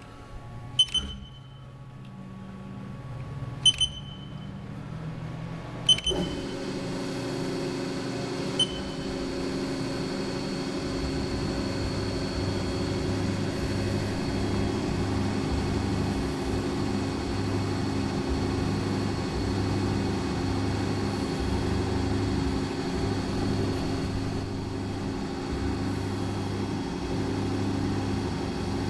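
CNC milling machine starting a program on an aluminum coaster: a few short, sharp beeps or clicks in the first several seconds, then about six seconds in the spindle and machine start up and run steadily, with a constant hum and whine as the end mill cuts.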